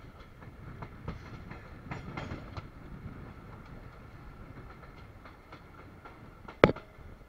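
Indian Railways sleeper-class passenger coach running at speed, heard from its open window: a steady rumble with scattered irregular clicks and knocks from the wheels and rails. One sharp, loud click comes near the end.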